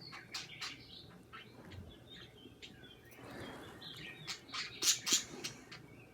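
Pet birds chirping: a quick, uneven run of short, sharp chirps and clicks, loudest about five seconds in, with a brief soft rustle about three seconds in.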